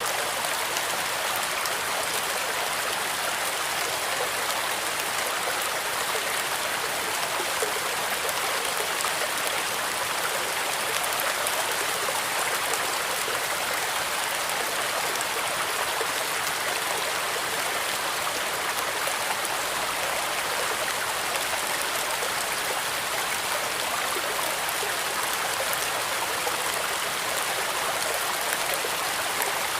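Fish tank water running and trickling steadily, an even splashing hiss with no breaks.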